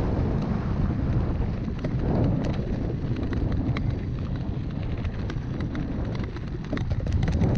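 Mountain bike rolling fast down a rocky dirt trail: a steady rumble of knobby tyres and wind on the microphone, with scattered clicks and rattles from gravel and the bike that come thicker near the end.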